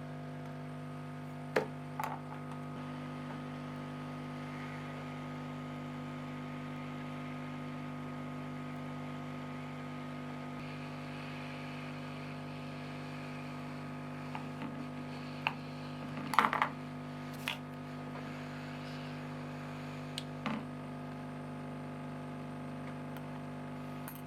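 Steady electrical hum with a few scattered sharp clicks and taps, clustered about two-thirds of the way through, from small plastic parts of an ink cartridge being handled.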